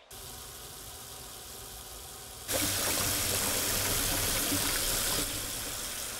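Tap water running into a stainless steel sink and splashing over hands being washed. The rush of water steps up sharply about two and a half seconds in and eases a little near the end.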